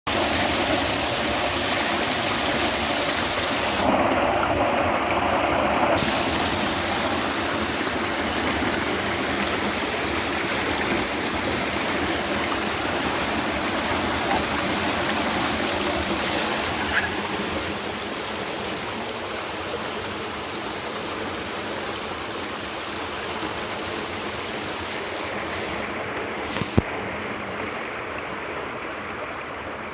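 Waterfall: a steady rush of falling water, a little quieter from about halfway through, with a single sharp click near the end.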